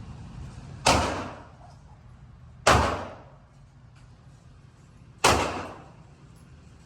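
Three shots from a Ruger Super Redhawk revolver in .454 Casull, each a sharp crack with a tail that dies away over about a second: the first about a second in, the second near three seconds, the third past five seconds.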